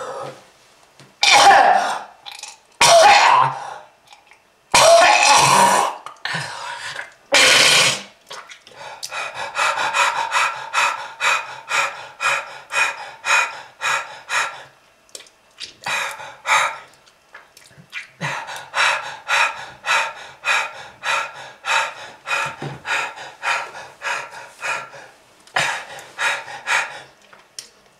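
A person in a heavy coughing fit, the smoker's cough the video ties to lung disease. Four loud, drawn-out coughs open it, then long runs of short, rapid coughs, about three a second, broken by brief pauses.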